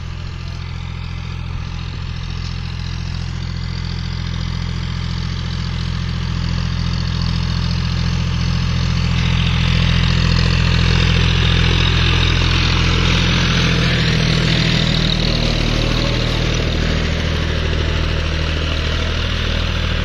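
John Deere tractor's diesel engine running steadily under load while pulling a rotary tiller through dry soil. It grows louder as the tractor comes close, and from about halfway a rushing noise of the tiller churning the soil joins it.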